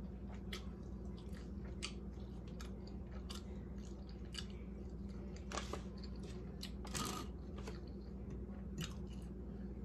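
Close-up chewing and crunching of a taco: irregular small crackles, with two louder crunches a little past halfway, about a second and a half apart.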